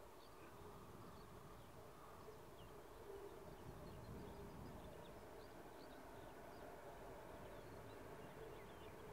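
Faint rural ambience: insects buzzing steadily, with small high chirps scattered throughout.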